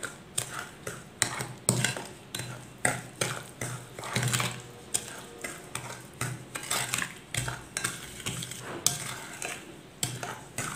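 Spatula stirring melted butter and powdered sugar in a glass bowl, scraping and knocking against the glass in a steady run of strokes, about two a second.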